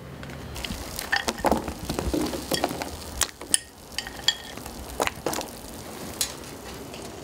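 Ramen broth simmering with a steady hiss in a large electric pan, with scattered light clicks and taps as dry noodle blocks and sliced rice cakes are dropped in.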